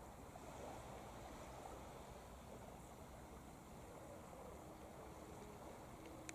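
Near silence: faint, steady outdoor background noise, with one small tick near the end.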